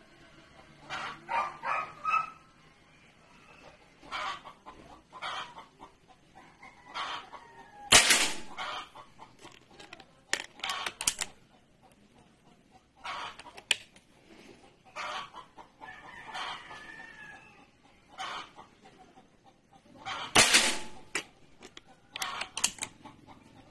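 Chickens clucking and a rooster crowing repeatedly, with several sharp cracks from a .22 PCP air rifle among them.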